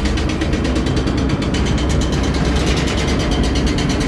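Hydraulic excavator's diesel engine running at working revs, with a fast, even ticking clatter over a steady low rumble.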